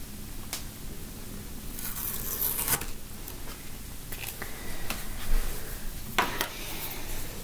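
Masking tape being picked up with a hook tool and peeled off a painted canvas board: a short scratchy tearing sound about two seconds in. It is followed by a few light clicks and knocks of handling.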